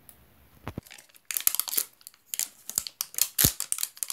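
Thin plastic wrapper of an L.O.L. Surprise ball being peeled and pulled off by hand, crinkling and tearing in quick bursts from about a second in, with two dull knocks from the ball being handled.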